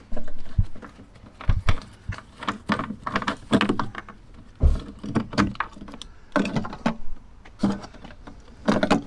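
A plastic water container being handled and shifted inside a cabinet hatch in a campervan's kitchen unit: a run of irregular knocks, clunks and rattles.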